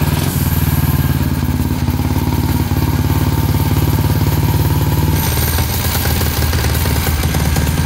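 Tillotson 225 single-cylinder racing engine, newly swapped into a motorcycle, idling on its first start-up through the bike's twin mufflers. About five seconds in, the idle drops lower as the throttle is adjusted.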